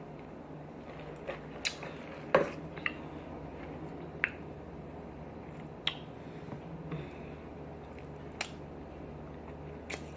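Close-miked mouth chewing food with scattered wet lip smacks, about nine sharp smacks, the loudest about two and a half seconds in, over a steady low hum.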